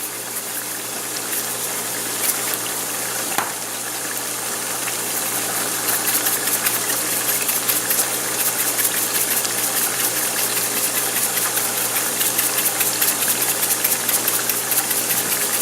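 Ground beef and sausage sizzling and crackling as they brown in a pan over medium-high heat, over a steady low hum. The crackling grows denser about five seconds in.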